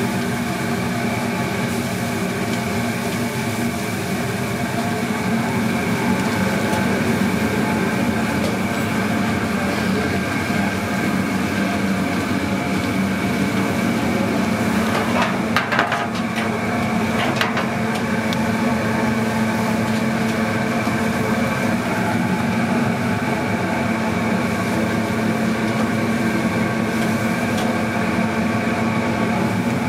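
Steady mechanical hum of commercial kitchen equipment with several steady tones. A few light clatters come about halfway through.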